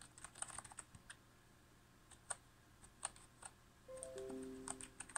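Faint, scattered keystrokes on a Fury Typhoon computer keyboard. About four seconds in, a few steady electronic tones come in one after another and sound together for about a second.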